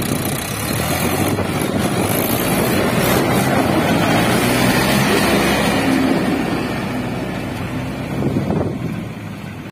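Mahindra 585 DI tractor's four-cylinder diesel engine running under load as it pulls a fully loaded trolley past. It grows louder toward the middle and fades near the end as it moves away.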